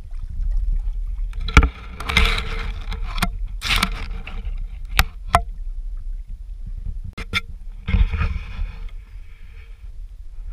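Bowfin thrashing in a mesh landing net and knocking against the boat: a scatter of sharp knocks and clicks, with two spells of rustling and splashing, about a second and a half in and again near eight seconds. A steady low rumble runs underneath.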